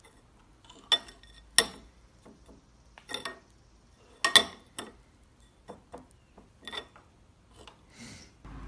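Metal spoon clinking against a ceramic cereal bowl: a series of sharp clinks at uneven intervals, the loudest about a second and a half in and just past four seconds.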